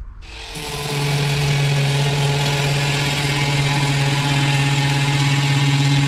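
Angle grinder fitted with a wire brush spinning up about half a second in, then running steadily at full speed, brushing down the kayak's hull.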